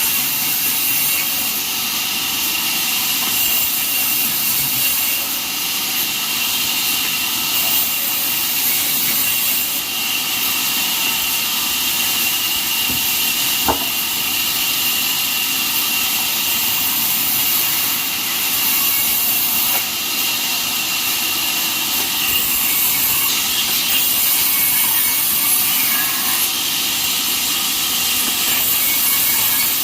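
Band sawmill running steadily, with a high whine held at one pitch throughout.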